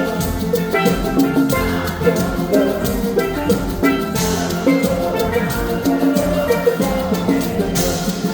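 Live band music led by a double second steel pan playing quick melodic notes, over drum kit, marimba and hand percussion with a steady beat.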